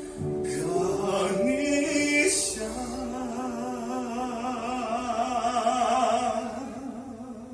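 Slow, chant-like singing in long held notes with a slow waver, fading out near the end.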